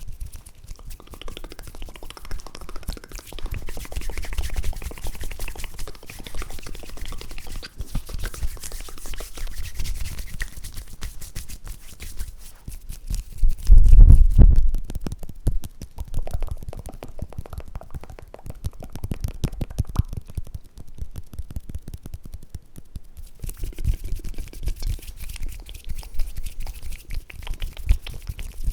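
Close-miked ASMR mouth and hand sounds: a dense run of fast wet clicks and crackles, with a loud low rumble lasting a little over a second about halfway through.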